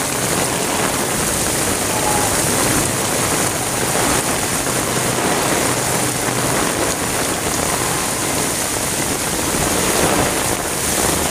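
Torrential monsoon rain pouring down onto a waterlogged street: a dense, steady hiss.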